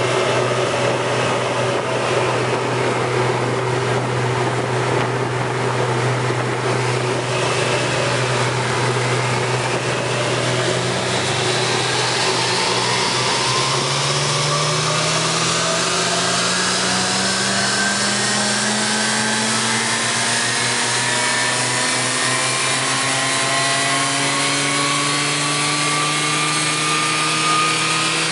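BMW 335i's N54 twin-turbo 3.0-litre straight-six running on a dynamometer: it holds a steady speed for about ten seconds, then climbs slowly and evenly in pitch through a long pull. A steady rushing noise runs underneath.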